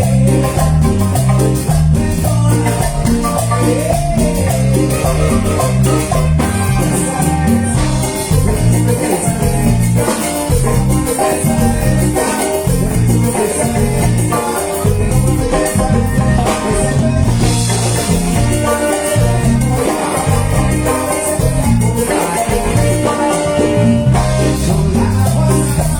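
Marimba orquesta playing a lively Latin dance tune: marimba melody over a steady bass and percussion rhythm.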